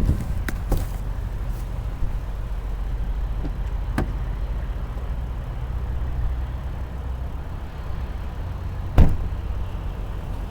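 Handling clicks and knocks, then one loud thump about nine seconds in, typical of a car door being shut, over a steady low rumble.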